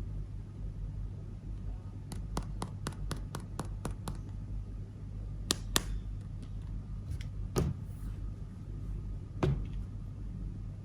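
Small plastic toy pieces handled, giving light clicks and taps: a quick run of about eight clicks, then a few single taps, over a steady low hum.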